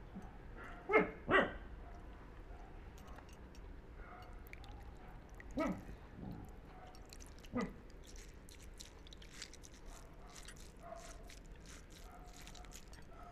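A dog barking: two short barks about a second in, then three more spread over the next few seconds, each dropping in pitch.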